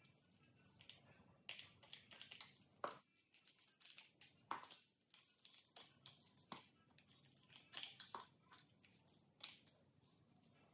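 Faint, irregular clicks and taps of plastic paint cups being picked up and set down on a plastic drop sheet, with light rustling between them.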